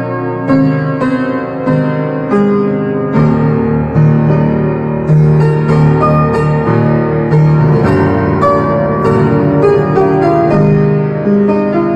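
Instrumental music led by piano or keyboard, chords and melody notes struck in a steady rhythm.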